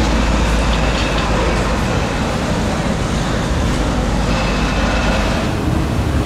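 Mercedes-Benz SLR McLaren's supercharged V8 running with a deep, steady rumble as the car pulls slowly away, mixed with street traffic noise.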